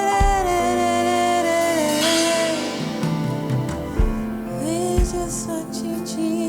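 Gospel worship song: a singer holds one long note over sustained keyboard chords with a low kick-drum beat, then starts a new phrase about four and a half seconds in.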